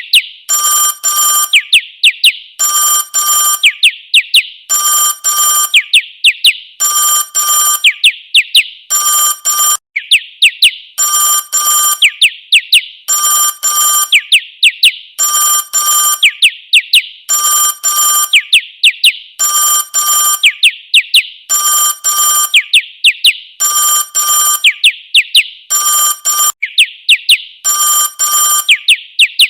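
Bird-song ringtone styled as an old telephone, playing loudly. Short, steady bell-like rings alternate with runs of quick chirping whistles, and the pattern repeats about every two seconds.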